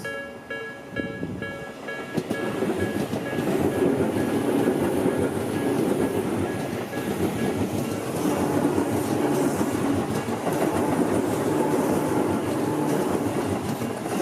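A Tobu Tojo Line train passing over a level crossing. Its rumble builds about two seconds in and stays loud, with the wheels clattering over the rail joints. The crossing's warning bell rings about twice a second at the start and fades under the train noise.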